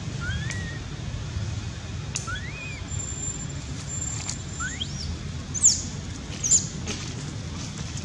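Baby macaque squeaking: a few short rising whistle-like squeaks, then two sharp high chirps about six and six and a half seconds in, the loudest sounds. A steady low rumble runs underneath.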